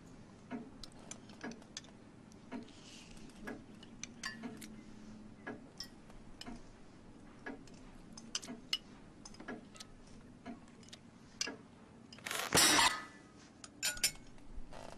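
Clock ticking about once a second in a quiet room, with a brief louder clatter of tableware about twelve seconds in.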